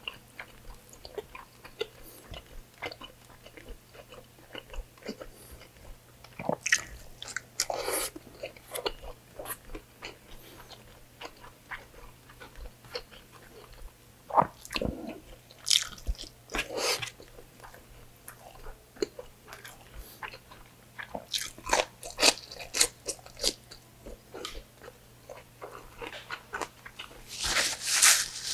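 Close-miked chewing and wet mouth smacks of a man eating pork belly adobo and rice with his hands, in uneven clicks and squelches. Near the end comes a short rustling hiss as a paper napkin is rubbed across his mouth.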